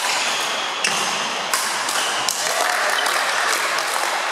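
Badminton racket strings hitting a shuttlecock in a sports hall: sharp taps about three-quarters of a second apart in the first half, followed by an even, clapping-like rustle.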